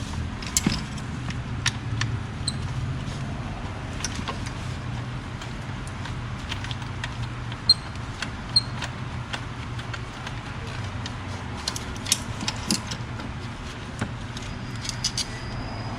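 Scattered clicks, taps and light clinks of hand work on hoses, clips and tools in a car's engine bay, over a steady low hum.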